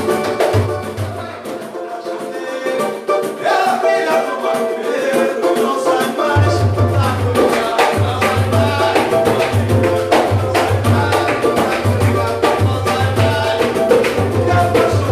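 Samba band playing: hand percussion with shakers over a deep repeating low beat, with voices singing. The low beat drops out about a second in and comes back about five seconds later.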